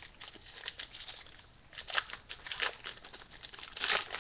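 Foil wrapper of a Yu-Gi-Oh! Abyss Rising booster pack being torn open and handled: irregular crinkling and crackling in short clusters, loudest near the end.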